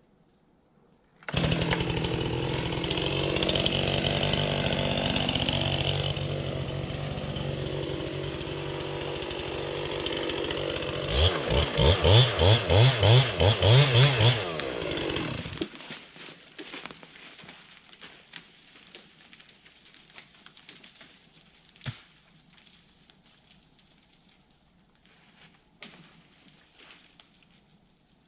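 Chainsaw running hard, cutting into a tree, then revved in about seven quick bursts before it stops about fifteen seconds in. After it stops come faint scattered clicks and a couple of sharp knocks.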